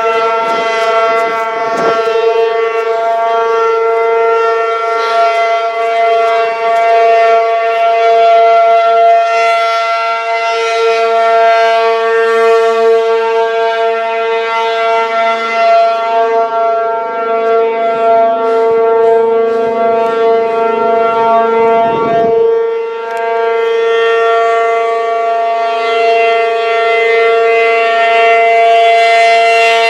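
Federal Signal P-50 outdoor warning siren sounding a loud, steady, unbroken tone at constant pitch, with a slight waver in loudness. It is stuck on after its test, a malfunction put down to a welded relay. A brief low rumble comes in about two-thirds of the way through.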